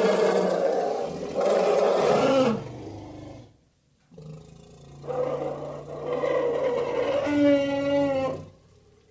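Elephant roaring and growling. One loud roar ends about two and a half seconds in, followed by a short pause. Then a steady low growl starts, with a second, longer roar over it that stops about a second before the end.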